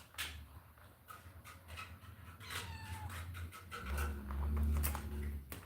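A cat meowing, with one falling meow about halfway through, among scattered light clicks; a low rumble, the loudest sound, comes near the end.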